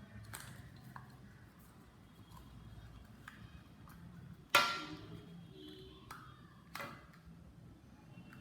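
Plastic headphone housing being pried apart by hand: quiet handling and scattered ticks, with one sharp loud snap about halfway through and a smaller click a couple of seconds later.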